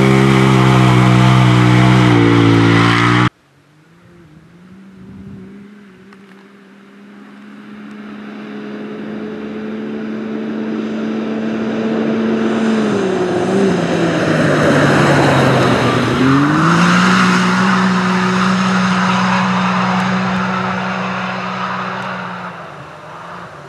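Side-by-side UTV engine running hard close by, its pitch steady at high revs, until it cuts off abruptly about three seconds in. Then another UTV engine is heard approaching: it swells over several seconds, the revs drop and climb back twice around the middle as the driver lifts and gets back on the throttle, holds a steady high note, then fades as the car drives away.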